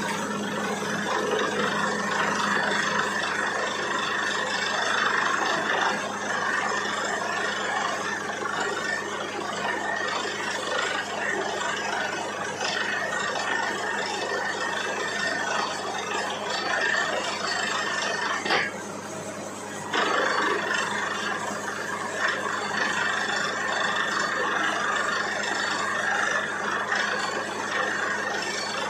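Borewell drilling rig running: a steady mechanical noise with a constant hum. It drops away sharply for about a second about two-thirds of the way through, then comes back.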